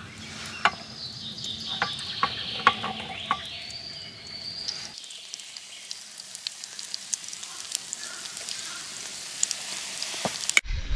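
Pancake batter sizzling in a small frying pan on a portable camp stove: a steady hiss with scattered crackling pops, cutting off abruptly near the end.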